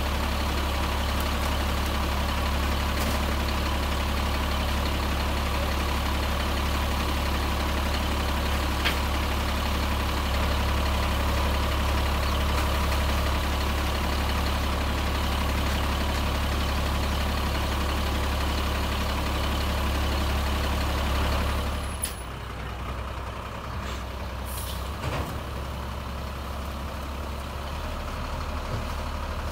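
Sterling Condor garbage truck with a Labrie Expert body, its diesel engine running with a steady, constant hum. About three-quarters of the way through, the sound drops suddenly to a quieter, more distant truck engine, with a couple of sharp clicks.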